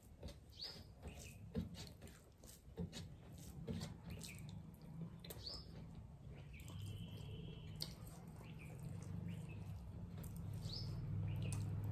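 Close-up eating sounds from hand-eating rice and curry off metal plates: fingers squishing and mixing rice, chewing and lip smacks, with many short clicks and squeaky mouth noises. A low hum grows louder over the last few seconds.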